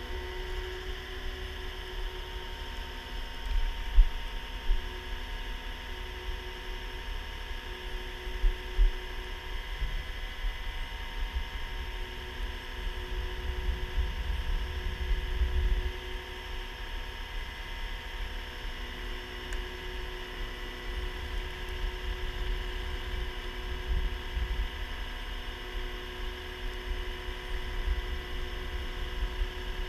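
Heavy-duty rotator wrecker's engine and hydraulics running, a steady multi-toned whine over a fluctuating low rumble.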